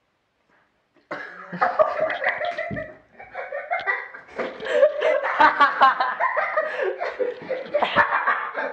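Young people laughing, with some coughing, starting about a second in after a moment of silence.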